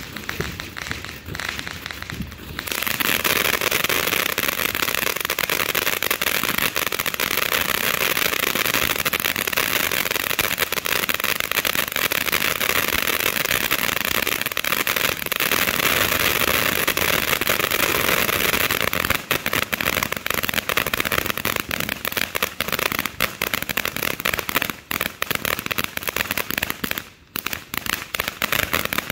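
Pagoda 'Glowing Lotus' ground fountain firework spraying sparks. A dense, steady hiss grows suddenly louder about three seconds in. In its last ten seconds the hiss breaks up into rapid crackling.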